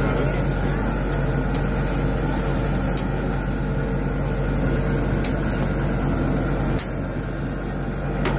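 Steady hum and hiss of a burger grill station with patties cooking over open flames, broken by a few sharp clicks of a metal spatula against the grill grate.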